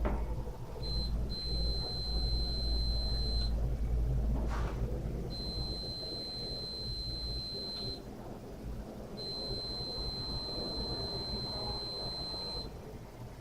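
Steady high-pitched electronic beep, sounding in four long stretches of two to three seconds each with short gaps between, over a low hum that fades about halfway through.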